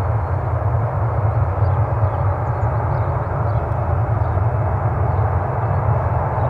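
Embraer E195 airliner's twin turbofan jet engines at takeoff thrust during the takeoff roll, a steady deep rumble with a hiss above it.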